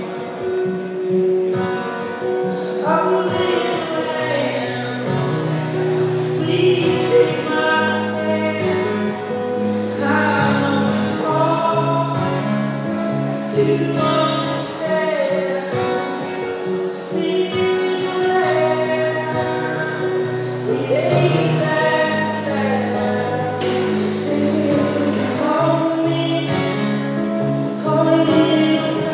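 A live song: a singer at the microphone with acoustic guitar accompaniment and held low notes underneath, amplified through a PA.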